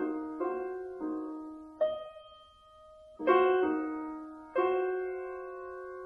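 Background music: slow piano notes and chords, each struck and left to ring and fade away, with a brief lull around the middle.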